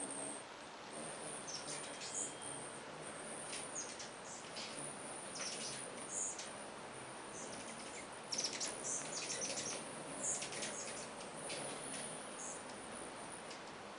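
Many rufous and Anna's hummingbirds chipping and squeaking at a feeder: short, high-pitched calls come in scattered clusters, busiest about eight to eleven seconds in, over a steady hum of wings like a swarm of bees.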